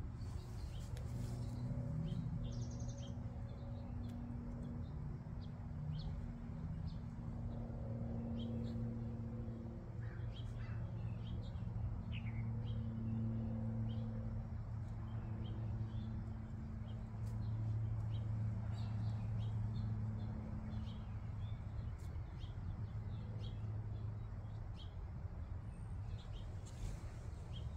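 Small birds chirping now and then, short high calls scattered throughout, over a steady low hum.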